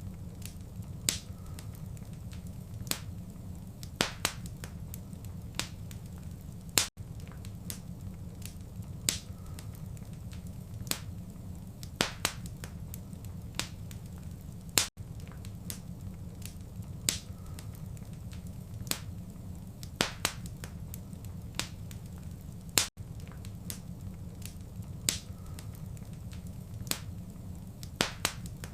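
Wood fire in a fireplace crackling, with irregular sharp pops and snaps over a steady low rumble. The sound cuts out for an instant about every eight seconds, where a short recording is looped.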